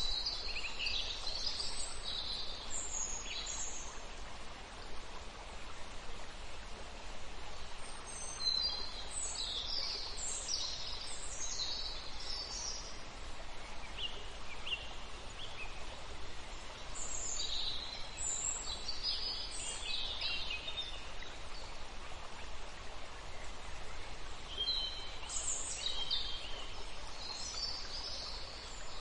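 Birds chirping in scattered clusters of short high calls over a steady background hiss.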